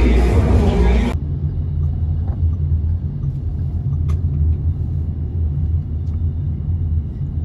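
Steady low rumble of a car driving, heard from inside the cabin. It starts about a second in, after a moment of louder, busier street sound, and there is one faint click near the middle.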